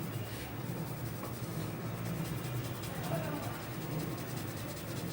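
Continuous scratchy rubbing of hands working through hair and over the scalp during a head massage.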